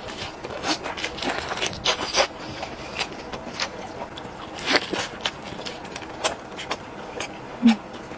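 Close-miked eating of chicken: a series of crunchy bites and chewing, with sharp crackles from the crisp skin, loudest a little before 2 s and just before 5 s.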